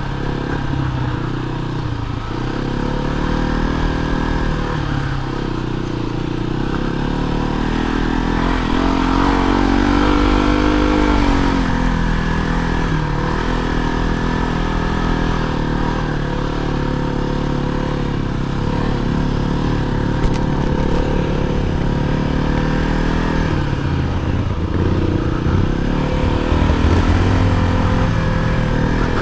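Kawasaki KLR 250's single-cylinder four-stroke engine running while riding slowly along a dirt trail. The revs rise and fall with the throttle, climbing about a third of the way through and easing back a few seconds later.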